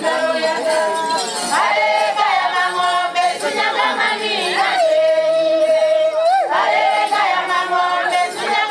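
A group of Sukuma singers singing a traditional song together, with a long held note about five to six seconds in.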